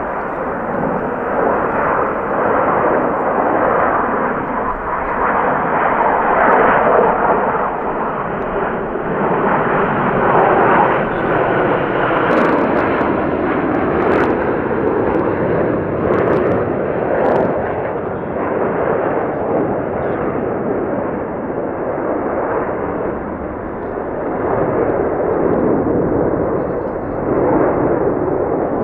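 A formation of KAI T-50B jets, each with a single General Electric F404 turbofan, flying over as a continuous jet rumble. The noise swells and eases a little as the formation passes.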